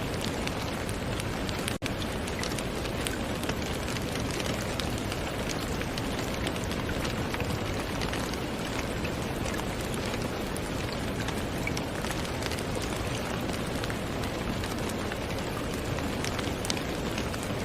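Steady rain falling, with many separate drop ticks heard through the hiss. The sound drops out for an instant about two seconds in.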